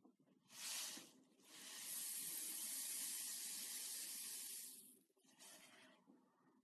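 Slime being squished and stretched by hand, making a hissing noise in three stretches: a short one, a long one of about three and a half seconds, then a short one.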